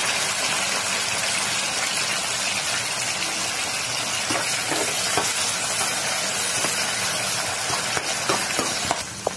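Onions, green chillies and tomatoes sizzling steadily in hot oil in a pan, stirred with a metal slotted spatula that scrapes the pan a few times in the second half.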